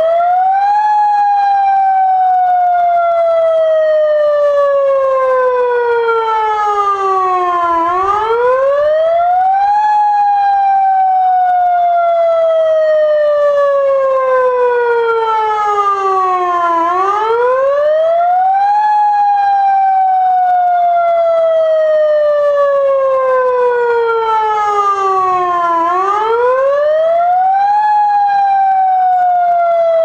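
Mobile electronic warning siren sounding a wail tone through its pair of horn loudspeakers: a loud, buzzy tone rises quickly for about a second, then falls slowly for about eight seconds, and the cycle repeats three times.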